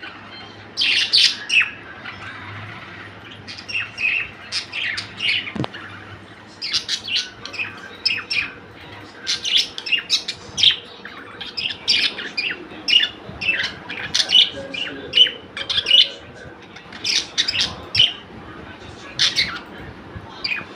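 Small pet birds chirping in many short, sharp calls, several in quick clusters, keeping up throughout.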